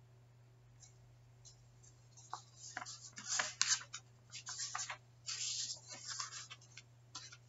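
Sheets of printer paper rustling and crinkling as pages are handled and shuffled, in irregular bursts with a few sharp crackles from about two seconds in. A steady low hum runs underneath.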